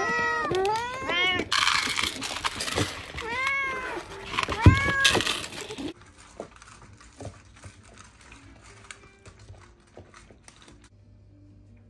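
Several domestic cats meowing loudly and insistently at close range, their calls overlapping, with two brief rattling noises among them. About six seconds in it turns much quieter: faint crunching and small clicks as the cats eat dry kibble from bowls.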